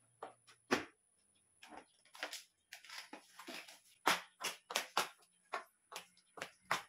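Scattered clicks and knocks of a plastic shoe rack's shelves and metal poles being handled and fitted together, with a brief rustle about three seconds in. In the second half, a run of sharp taps about two a second, footsteps on a hard floor.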